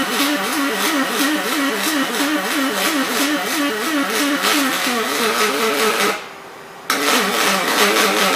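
Robotic aluminum welding arc buzzing and crackling, its tone warbling up and down several times a second. It cuts out about six seconds in and strikes again under a second later.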